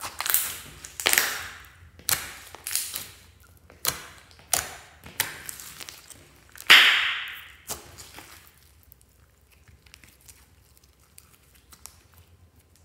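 Hands squeezing and kneading a lump of glossy slime: a run of wet squishes, about one every half second for the first eight seconds, the loudest about seven seconds in. After that only faint small crackles and clicks are left.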